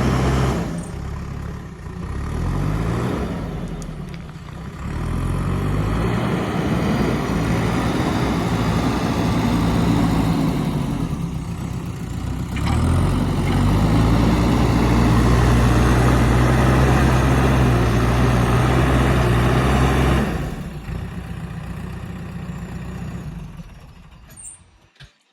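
JCB 3DX backhoe loader's diesel engine working, its revs rising and falling several times, then held high and steady before dropping back about twenty seconds in and fading out near the end.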